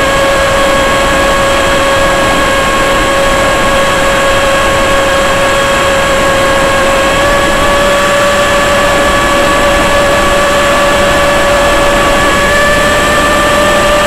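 Electric motor and propeller of a radio-controlled aircraft in cruise at steady throttle: a loud, steady whining drone whose pitch creeps slightly higher in the second half, over heavy wind rush, heard through the aircraft's onboard action-camera microphone.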